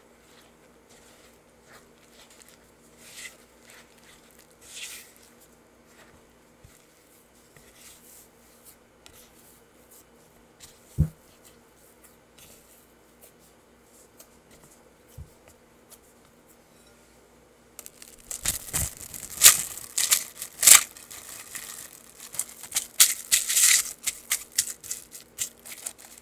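Silicone spatula scraping and stirring flour and dough in a glass bowl, soft and faint, with a single knock about eleven seconds in. From about two thirds of the way through, plastic cling film is pulled off, torn and crinkled over the bowl, loud and crackling.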